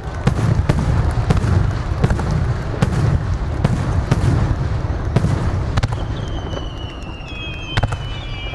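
Fireworks display: a rapid barrage of aerial shells bursting, many sharp bangs over a continuous low rumble. From about six seconds in, a high whistle runs over the bangs, slowly falling in pitch.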